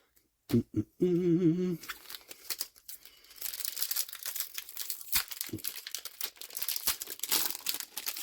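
A trading-card booster pack wrapper being crinkled and torn open, a dense, crackly rustle that sets in about three seconds in and carries on to the end. Before it there is a brief wordless vocal sound.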